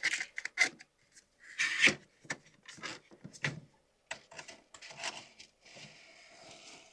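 Clicks, knocks and rustling as filament is loaded into the first slot of a Bambu Lab AMS Lite. Near the end a steady motor whirr starts: the AMS Lite feeding the filament in.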